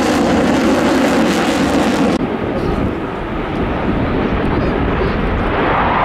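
Jet fighter engines running with a loud, steady roar. About two seconds in the sound changes abruptly to a duller, lower rumble with the high hiss gone.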